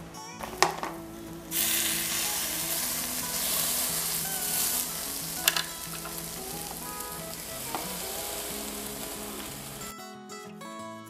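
Oat-and-egg bread loaves sizzling on the hot grill plates of an electric sandwich maker. The sizzle starts about a second and a half in and stops near the end. A couple of sharp knocks come before it and partway through.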